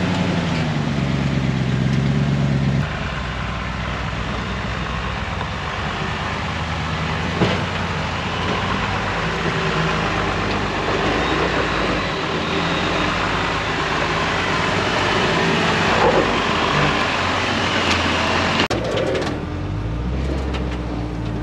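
Full-size 4x4 truck engine running on the trail, its pitch rising and falling for the first few seconds. The sound then changes abruptly to a steady noisy wash over a lower engine note, with a couple of sharp knocks, and changes abruptly again near the end.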